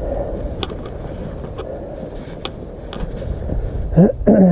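Hikers' footsteps scuffing and clicking on a rocky trail, a few sharp steps over a steady low rumble on the microphone; a voice speaks briefly near the end.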